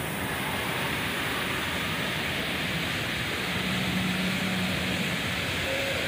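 Steady rushing hiss of water falling over a small rock waterfall into a pond.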